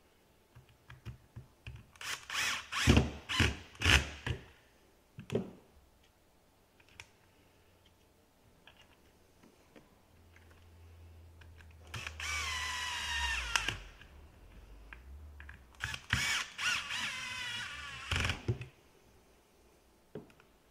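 Cordless drill-driver tightening screws into a pruning shear's metal head, with a quick run of sharp clicks as the screws seat about two to four seconds in. Two longer bursts of whining motor noise follow later.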